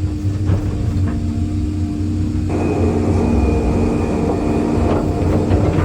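Excavator diesel engine running steadily. About two and a half seconds in it works harder as the machine moves under load, and a thin high whine joins in.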